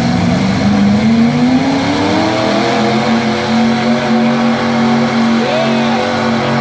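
Demolition-derby pickup truck's engine revving hard under load as it shoves a wrecked vehicle across the dirt, its pitch climbing over the first few seconds and then held high and steady.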